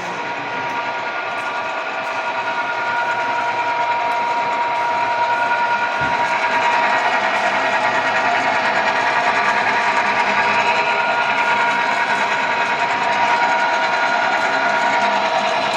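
Okuma & Howa STM 2V vertical milling machine running, a steady mechanical whine made of several tones over a continuous hum. It grows louder over the first few seconds, then holds steady.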